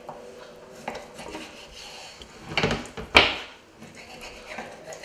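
Kitchen knife slicing through raw sea bass fillets onto a plastic chopping board: soft scraping and light taps of the blade on the board, with a few sharper knocks about three seconds in.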